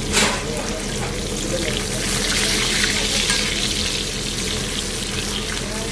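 King mackerel (surmai) steaks sizzling in shallow oil on a large flat griddle: a steady hiss that swells a little about two seconds in, over a steady low hum.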